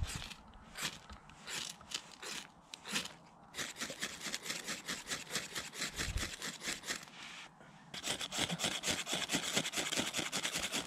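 Ferrocerium fire steel scraped hard with a striker to throw sparks into dry grass tinder: a few separate strokes at first, then fast, repeated scraping from about four seconds in, pausing briefly and coming back louder near the end.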